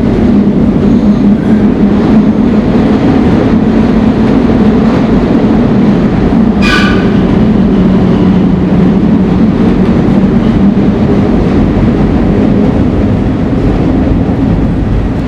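M4 rapid-transit car 1062 running between stations, heard from on board: a loud, steady rumble of wheels on rail with a low hum under it. About seven seconds in there is a brief high tone.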